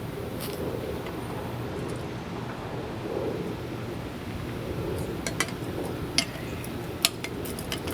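A steady low outdoor rumble, with several sharp clinks of metal gear being handled, bunched in the second half.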